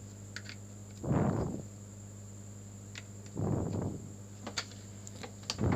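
Small sharp clicks and handling noise from the plastic meter being worked on by hand, over a steady electrical hum, with three soft swells of noise about half a second long.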